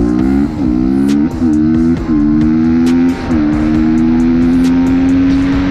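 Dirt bike engine accelerating through the gears: its pitch climbs and drops back at each of four quick upshifts in the first three seconds, then holds nearly steady at cruising speed.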